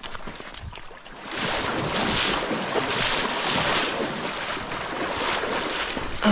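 Dry brush and leaf litter rustling and crackling as someone pushes and climbs through it on foot, in a rough repeating rhythm over a steady rushing noise.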